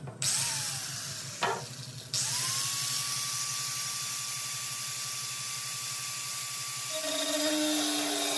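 Corded angle grinder cutting through the sheet-steel inner panel of a vehicle's rear door. Right at the start it is briefly triggered and winds down. About two seconds in it starts again and runs steadily through the metal, a high whine over a hiss, with a lower hum joining near the end as the disc bites in.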